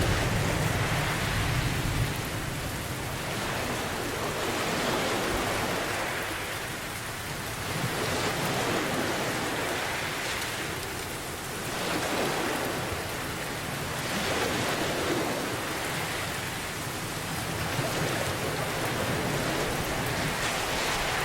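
Steady heavy rain, with ocean waves swelling and falling back every few seconds. A low thunder rumble dies away in the first couple of seconds.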